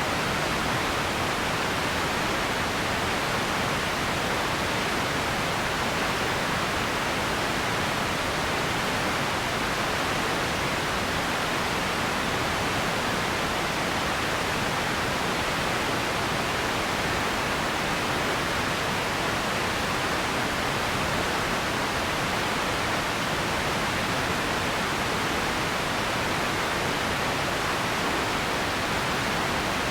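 Radio static: a steady, even hiss that holds the same level throughout.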